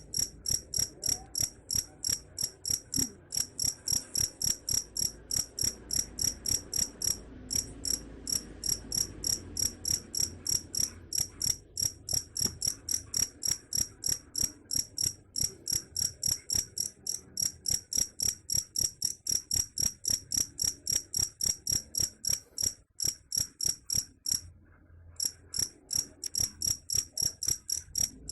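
Cricket chirping in a steady, even rhythm of high-pitched chirps, about four a second, with a brief break about a third of the way in and another near the end.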